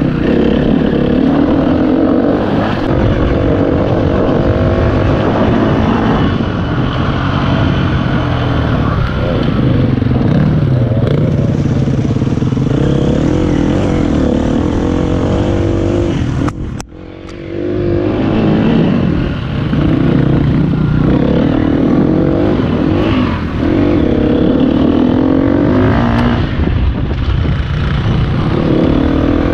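Enduro dirt bike engine being ridden hard, revving up and down through the gears. About halfway through, the sound drops sharply for a moment, then the engine picks up again.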